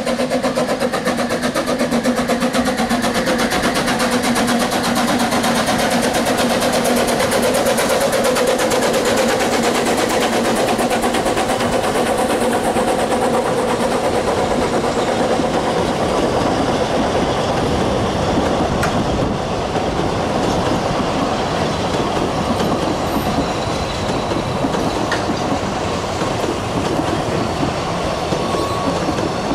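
Narrow-gauge steam train passing a level crossing: the Double Fairlie locomotive goes by in the first seconds with a steady pitched hum over its running noise, then a long rake of carriages rolls past with a continuous wheel-on-rail rattle.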